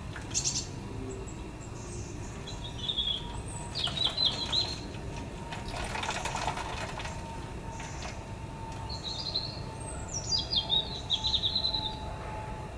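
Songbirds chirping in short, high trilled phrases, about four bursts with gaps between them, the loudest near the end.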